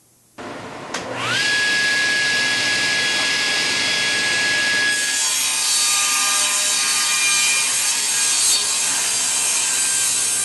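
Table saw starting up, its motor whine rising in pitch over about a second and then holding steady as the blade spins free. From about five seconds in, the blade rips a thin strip off a block of wood, and a harsher, louder cutting noise takes over.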